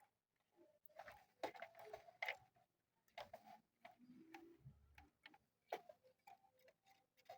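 Faint, irregular small clicks and light taps from hands fitting speaker wires onto a small audio amplifier board.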